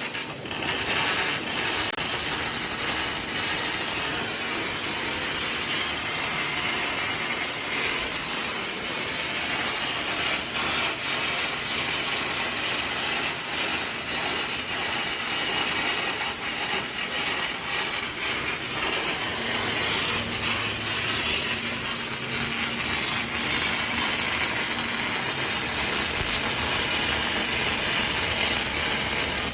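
Continuous mechanical rattling and hiss of welding-shop machinery, steady throughout, with a faint low hum joining for a few seconds past the middle.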